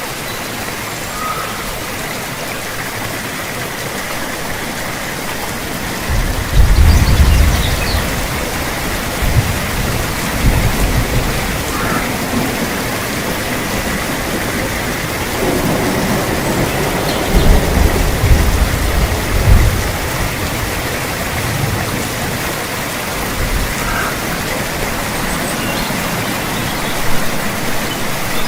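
Steady rain falling, with low rolls of thunder about six seconds in and again for several seconds past the middle.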